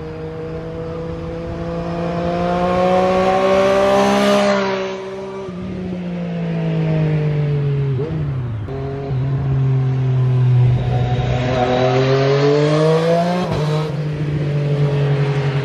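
Triumph Street Triple RS inline-three engine through an Arrow exhaust, accelerating and shifting up: the pitch climbs, drops sharply about five seconds in, dips around eight seconds, climbs again and drops once more near the end as the bike comes closer.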